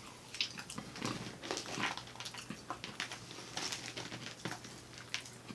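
A person chewing and smacking his lips close to the microphone while eating, a string of short, irregular wet clicks and smacks.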